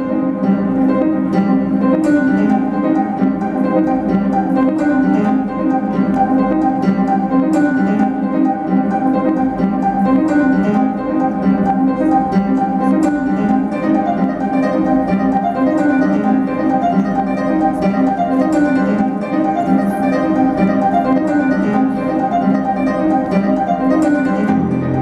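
Music with quickly repeated plucked-string notes.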